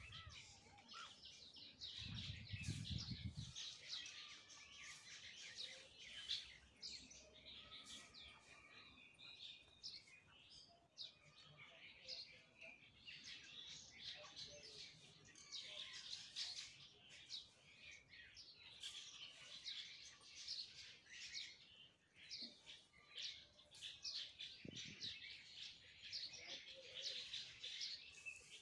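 Faint outdoor birdsong: several small birds chirping and calling throughout, with a brief low rumble about two seconds in.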